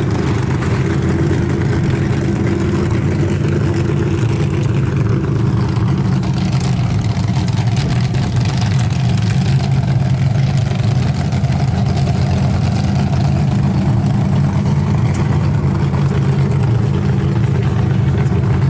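An engine idling steadily, an even low-pitched running sound that holds level throughout.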